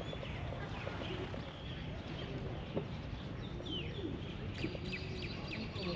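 Birds calling: doves cooing in short, low, curving notes, with small birds chirping higher up, more often near the end, over a steady low background noise.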